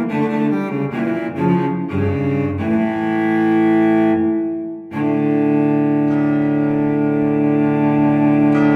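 Background music: a solo cello track, a quick run of short notes and then a long sustained chord held from about five seconds in.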